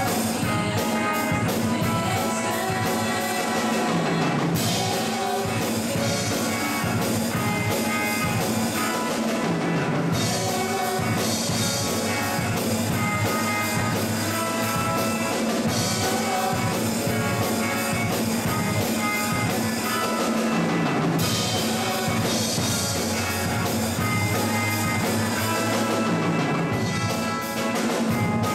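Live worship band performing a song: a group of singers over acoustic guitar and a drum kit keeping a steady beat.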